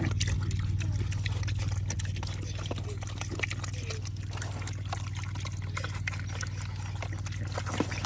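Piglets eating juicy watermelon chunks from a tub: wet chewing, smacking and slurping, with snouts splashing in the juice, over a steady low hum.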